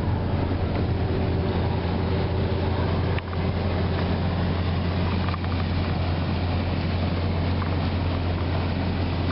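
Boat engine running steadily underway, a constant low drone under the noise of wind and water.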